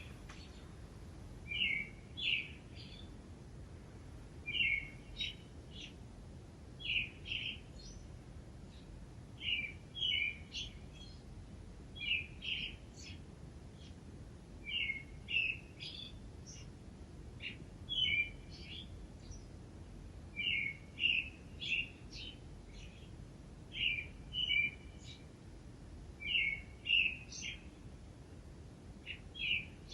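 A songbird singing, short phrases of a few quick chirped notes repeated every two to three seconds, over a faint steady background hum.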